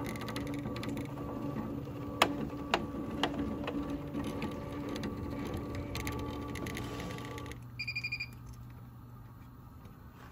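SWF MAS-12 multi-needle embroidery machine tracing the design outline on a cap: the frame drive hums and clicks as it moves the cap frame, stopping about seven and a half seconds in. A short run of quick beeps follows.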